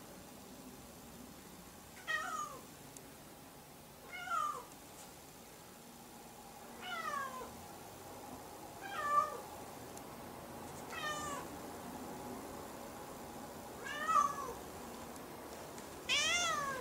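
House cat meowing repeatedly: seven short meows a couple of seconds apart, each falling in pitch. The last one, near the end, is the loudest.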